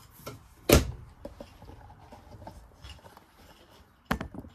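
Objects being handled and set down in a small room: a sharp knock about a second in and another pair of knocks near the end, with small clicks and rubbing between.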